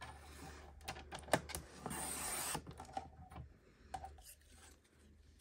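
Cricut paper trimmer cutting a strip of patterned paper: the blade carriage clicks and scrapes along its rail, loudest in a steady scrape about two seconds in, followed by a few light clicks as the paper is handled.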